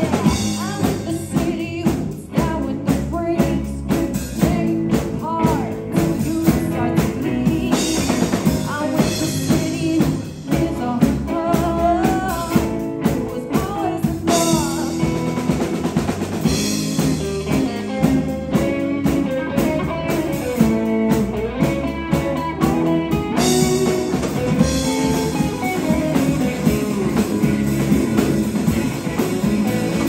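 Live rock band playing: a female lead voice over two electric guitars, electric bass and a drum kit.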